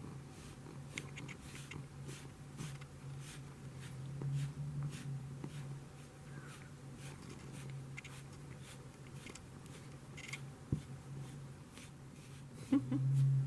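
A brush being drawn through a long-haired cat's coat: a string of short scratchy strokes, irregular, about one or two a second, over a steady low hum. A louder brief sound comes near the end.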